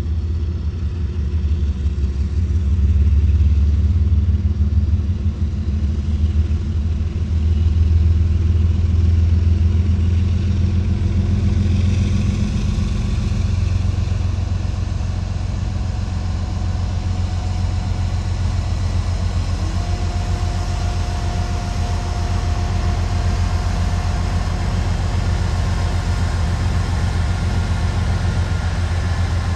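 Union Pacific diesel locomotives running with a steady low engine rumble as a freight train approaches and rolls past.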